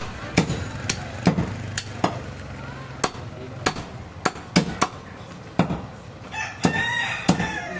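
A butcher's cleaver chopping goat meat on a wooden log block: about a dozen sharp, irregular knocks, one to two a second. Near the end a long, drawn-out call rises over the chopping.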